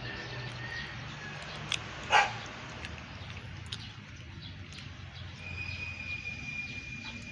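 A Siberian Husky barks once, briefly, about two seconds in.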